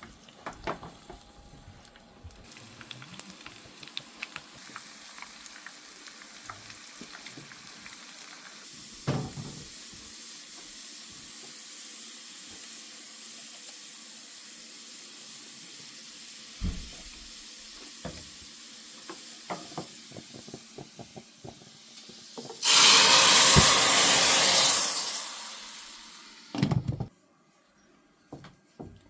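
Food sizzling in a pan with a steady hiss and occasional knocks of a spoon or pot. About 23 seconds in, a much louder sizzle bursts up for a few seconds, then dies away.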